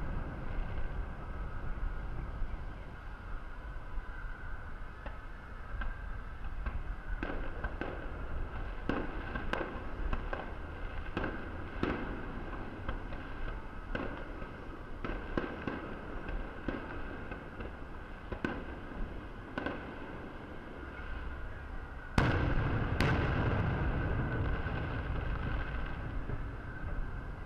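Aerial firework shells bursting: scattered sharp bangs with echoes, coming thickest in the middle, then two loud booms about 22 and 23 seconds in followed by a rumbling crackle.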